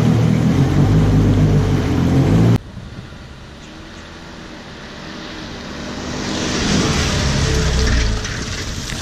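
A jet ski engine running steadily at low speed cuts off abruptly a couple of seconds in. A quieter stretch follows and builds into a rising hiss over the last few seconds.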